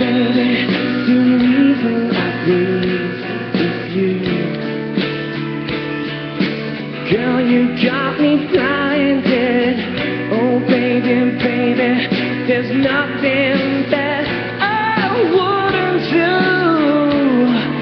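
Background pop song with a singing voice over a band with guitar.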